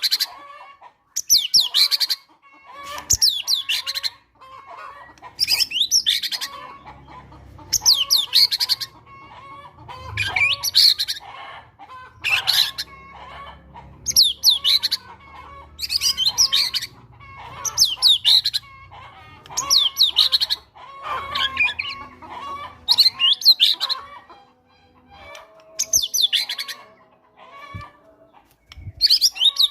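White-rumped shama singing loud, fast-sweeping whistled phrases about every one and a half to two seconds, working in mimicked cinereous tit calls. Fainter chattering calls fill the gaps between phrases.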